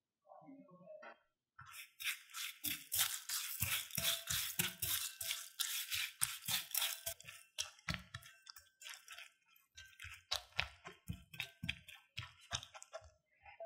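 A faint pour of beaten egg in the first second, then a silicone spatula stirring crushed dry instant noodles in a ceramic bowl: a fast run of scratchy, crunchy strokes that slows after several seconds to separate scrapes.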